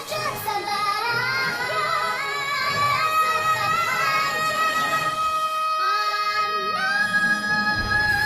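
Female voices singing an Abkhaz-language musical duet, holding long notes with vibrato over the accompaniment. About six seconds in a second held note comes in and steps up to a higher pitch about a second later.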